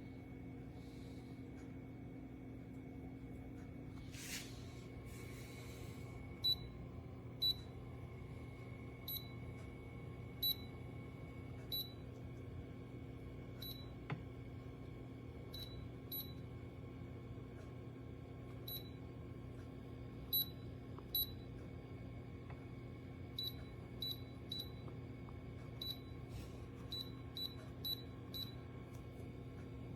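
Cool mist humidifier running with a steady low hum, with about twenty short high ticks at irregular intervals.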